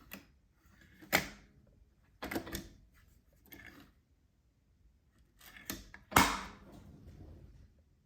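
A handful of separate mechanical clicks and clunks as a 1946 Smith Corona Clipper portable typewriter is handled, the loudest about six seconds in.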